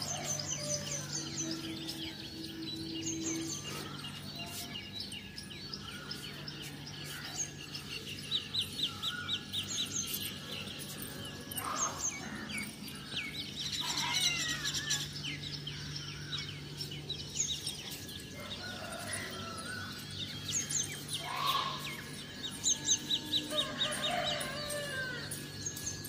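Several birds chirping and calling, with fast trills of rapidly repeated high notes that come and go, over a steady low hum.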